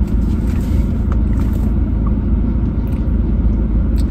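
Steady low rumble of a car heard from inside the cabin, with a few faint brief rustles over it.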